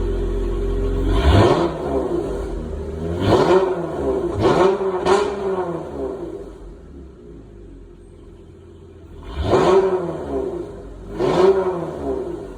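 Dodge Challenger engine on its stock exhaust, idling and then revved in six short blips, each rising and falling back to idle, with two of them close together about five seconds in.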